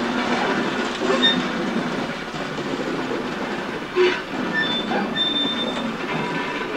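Steam locomotive 23 105, a DB class 23, rolling slowly with its train: a steady rumble of running gear, with short high-pitched squeals of wheels on the rails a few times. A sharp knock comes about four seconds in.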